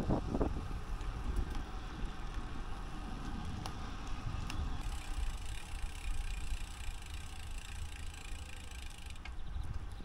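Bicycle rolling along a path: a steady low rumble of tyres and wind buffeting the microphone, with a few light clicks.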